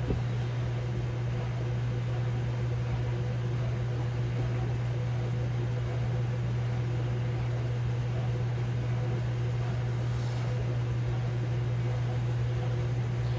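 Ninja Foodi multicooker running its fan while it preheats: a steady low hum with a light rush of air.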